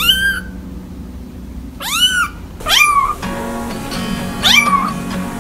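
Kittens meowing: four short, high-pitched mews, each rising then falling in pitch, over background music.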